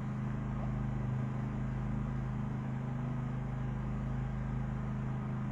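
A steady low mechanical hum that holds one pitch throughout, like a small engine or motor running.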